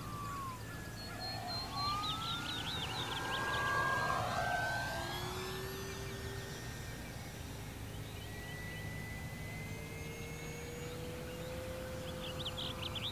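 Electric brushless motor and propeller of an FMS 1500mm Cessna 182 RC foam plane whining overhead. The pitch falls, then climbs and holds as the plane passes and the throttle changes, and it is loudest a couple of seconds in.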